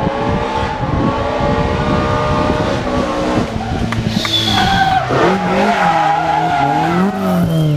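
Historic rally car engine revving hard, its pitch climbing and dropping repeatedly through gear changes and lifts off the throttle, with tyres squealing briefly about four seconds in.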